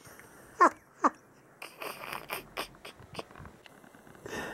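Blue heeler (Australian cattle dog) giving two short whines, each falling in pitch, about half a second apart, with a treat stick held in its mouth. Then comes a quick run of soft clicks and rustles.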